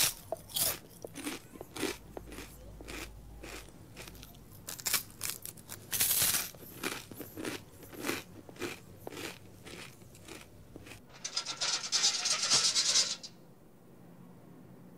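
A person chewing hard cubes, with irregular loud crunches. Near the end the crunching gives way to about two seconds of harsh scraping.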